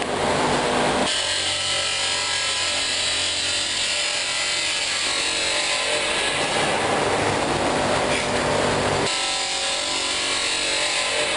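Factory machinery running: a steady whirring hiss, with a low mechanical hum added from about a second in until near the end.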